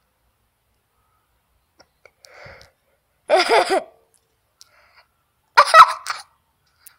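A person's voice in two short, loud outbursts about two seconds apart, such as a stifled laugh or a sneeze, with faint whispering shortly before the first.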